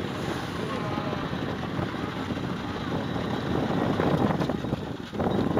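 Steady low rumble of a boat's motor running, with wind on the microphone.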